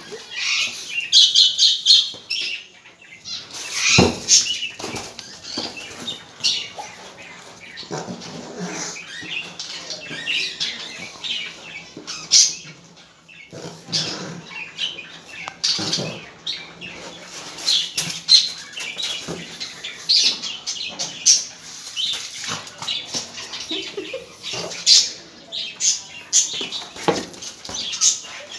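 A pug playing with a small plastic football on a tiled floor: irregular knocks, scuffs and scrabbling of the ball and the dog's claws, with a few sharper knocks. Birds chirp near the start.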